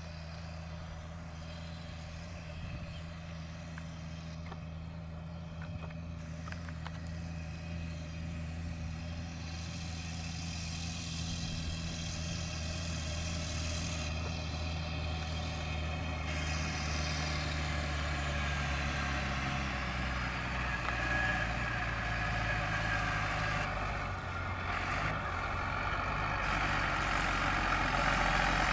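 TerraGator 8103 self-propelled lime spreader's diesel engine running steadily under load as the machine drives closer, growing gradually louder, with a hiss that builds over the second half.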